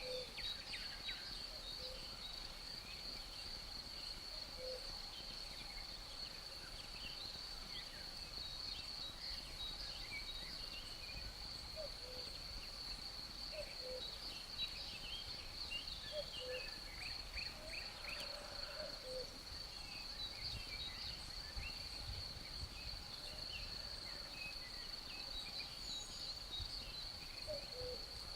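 Night ambience of crickets trilling in one steady high-pitched drone, with scattered short bird chirps and a short low call repeating every couple of seconds.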